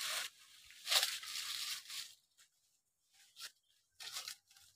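Irregular rustling and crunching noises in short bursts, with no chainsaw running.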